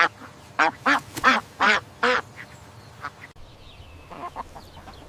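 Duck quacking: a quick string of about six short quacks in the first two seconds, then fainter quacks.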